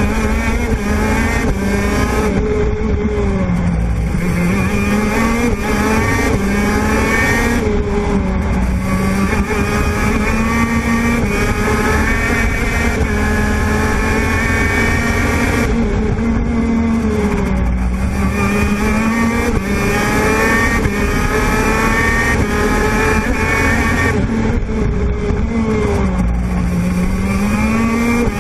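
Onboard sound of a racing kart's 125 cc TM two-stroke engine at full race pace. The engine note climbs steadily as the kart accelerates and drops sharply under braking for corners, several times over the lap.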